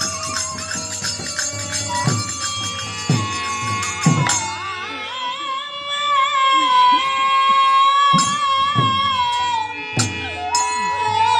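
Bengali nam kirtan music: held harmonium tones under a wavering melody line, with hand cymbals ringing and a handful of drum strokes.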